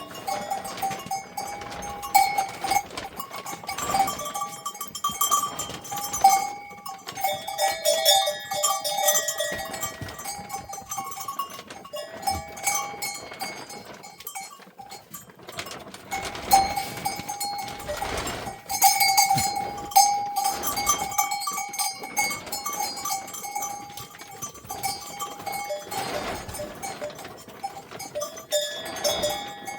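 Bells on grazing livestock, most likely sheep or goats, ringing irregularly as the animals move. The clanks come in uneven clusters, with short knocks between them.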